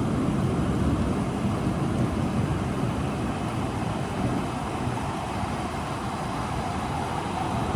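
Steady storm rain noise with a low rumble underneath, strongest in the first few seconds and then easing off.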